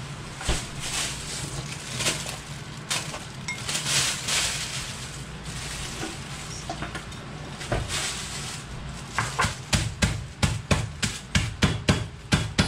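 Kitchen work noise, with scattered knocks, then a rapid run of sharp knocks, about four a second, over the last few seconds.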